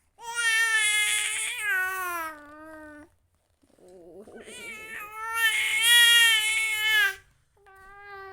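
Domestic cat meowing: a long drawn-out meow falling in pitch, a rough, raspy sound leading into a second long meow, and a shorter meow near the end.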